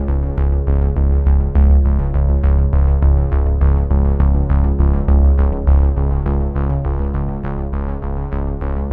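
Background electronic music: sustained synthesizer chords over a steady bass, with a regular beat of about four strokes a second.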